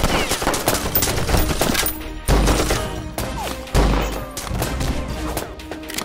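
Rapid pistol gunfire in a film shootout, shot after shot in quick succession over dramatic music, with two deep booms about two and a half and four seconds in.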